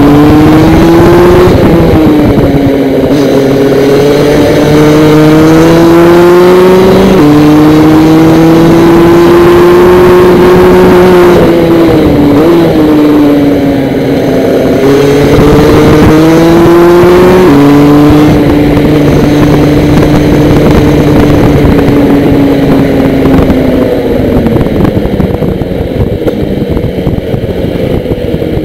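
Praga DD2 kart's Rotax 125 cc two-stroke engine at racing speed, heard onboard, its pitch climbing on the straights and falling off into corners. Two sudden drops in pitch, about 7 and 17 seconds in, as it shifts up through its two-speed gearbox. Near the end the revs fall and it gets quieter as the kart slows.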